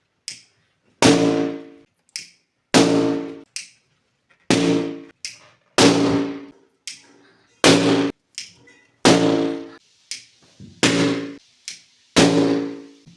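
Eight balloons bursting one after another, about one every one and a half seconds, each with a sharp bang that rings and dies away over half a second. A faint click from the gas lighter comes just before each burst.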